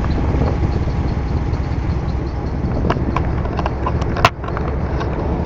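Car driving slowly, with steady low road and engine rumble, a few light ticks, and one sharp click about four seconds in.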